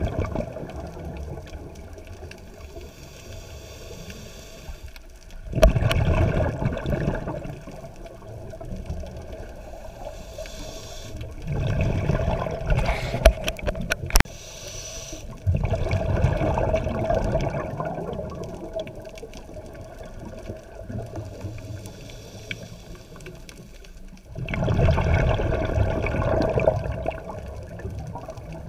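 A scuba diver's exhaled bubbles rushing from the regulator, in four bursts of about two seconds each, spaced a few seconds apart, with quieter underwater noise between. There are a few sharp clicks around the middle.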